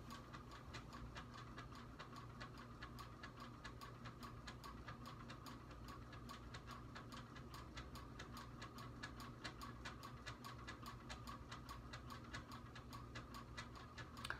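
Faint, steady ticking, about four or five ticks a second, over a low room hum.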